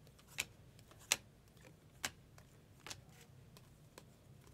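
A stack of glossy Topps Chrome baseball cards being flipped through by hand, each card slid off and tucked to the back of the stack with a short sharp click, about once a second.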